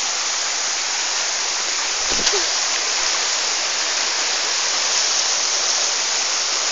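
Rocky stream flowing steadily over stones, a constant rush of water, with a short thump about two seconds in.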